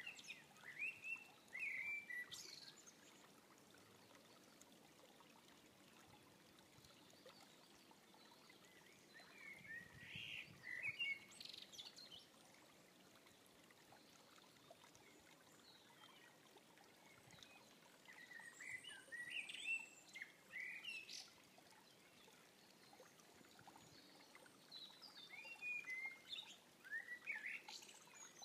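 Eurasian blackbird singing: four short phrases several seconds apart, each ending in higher, thinner notes, over the faint steady rush of a creek.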